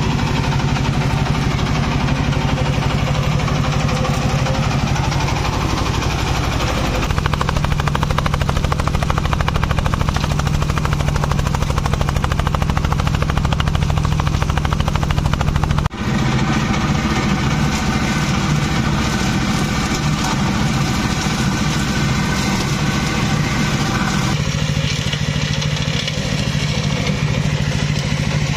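Engine of a rubber-tracked brush mower running steadily as the machine cuts through weeds and brush. The hum shifts in character about a quarter of the way in and again near the end, with a brief dip about halfway through.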